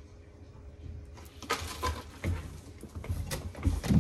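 Hard-shell suitcase being handled and tipped upright: a string of knocks and taps on the shell, with a heavier thump near the end.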